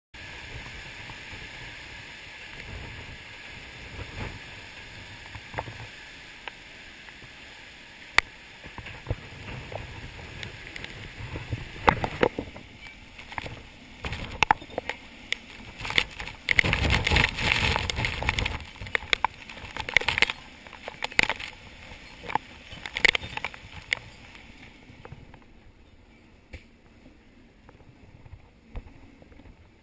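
Thunderstorm wind gusting hard with rain, with repeated sharp snaps and knocks from a flapping fabric shade sail and loose objects. The loudest gust buffets the microphone about two-thirds of the way through. Near the end the sound turns quieter and muffled, heard from indoors.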